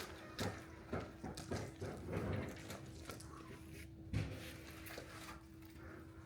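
Irregular knocks and clunks of parts being handled, loudest about two and four seconds in, over a faint steady hum.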